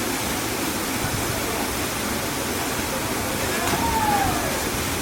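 Waterfall: falling water making a steady, dense rush. Near the end a single short whistle glides downward in pitch over it.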